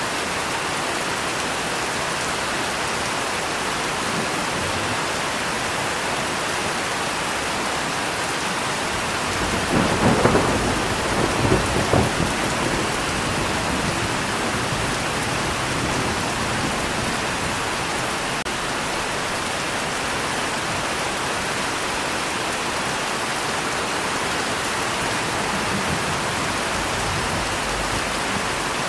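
Steady heavy rain falling, with a roll of thunder rumbling about ten seconds in and fading within three seconds.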